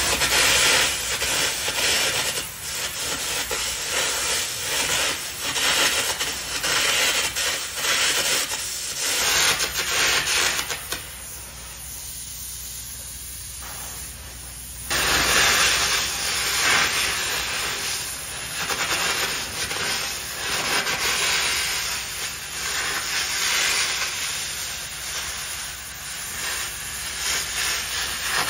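Air carbon arc gouging on a steel loader bucket, preparing it for a new lip: a loud, crackling hiss of the arc and its compressed-air jet. It breaks off for about four seconds near the middle, then starts again.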